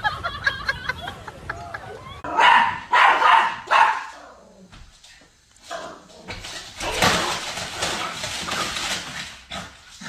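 Small dog barking, three short barks in quick succession.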